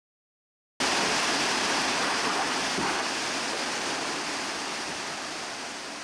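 Waterfall and fast river water rushing steadily. The sound cuts in suddenly about a second in and slowly grows quieter.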